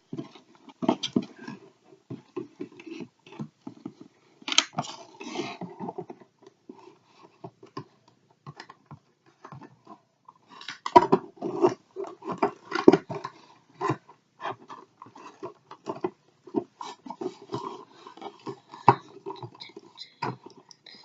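Cardboard and plastic toy packaging being handled and pulled at: irregular crinkling, tapping and clicking, busier in the second half.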